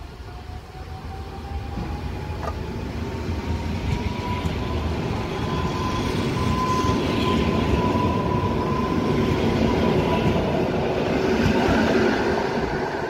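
EN57AL electric multiple unit pulling away from the platform: the whine of its traction drive rises in pitch as it accelerates, then holds steady, over a rumble of wheels on rail that grows louder as the cars roll past.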